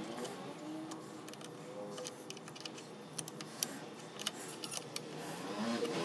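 Irregular small metallic clicks and clinks of a spanner working the nut on a car battery's terminal clamp as it is tightened onto the post.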